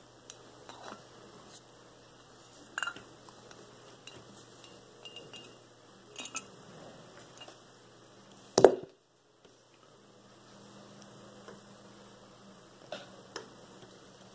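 Light clicks and clinks of a carved wooden model hull and a wooden tool against a glass bottle as the hull is worked in through the neck, with one sharp knock about two-thirds of the way in.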